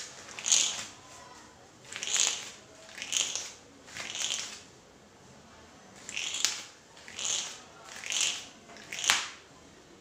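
Twisted threading thread scraping across newspaper in repeated strokes: about eight dry rasps, roughly one a second, with a short pause around the middle.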